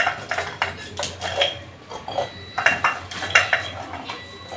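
Peeled garlic cloves packed by hand into a glass pickling jar: a run of light knocks and clinks against the glass, some ringing briefly.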